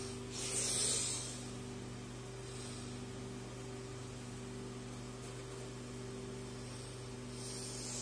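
Steady hum of an old Athlon desktop PC running while its CD-ROM drive reads the install disc, with a short hissing whoosh about half a second in and a fainter one near the end.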